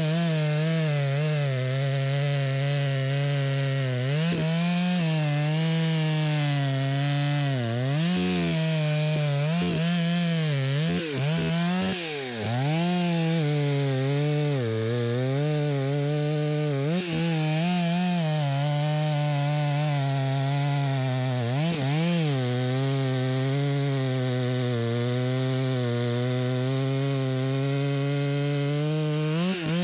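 Stihl MS661 two-stroke chainsaw running at full throttle while cutting white fir. The engine note dips and recovers again and again as the bar loads in the cut.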